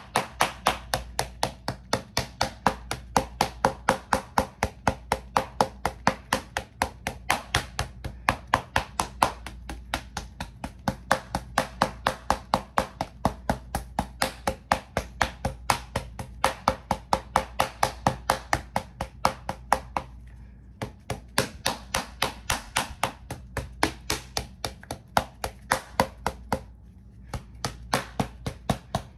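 Rhythmic tapping, about three sharp strikes a second, keeping an even pace with two brief pauses, one about two-thirds of the way in and one near the end.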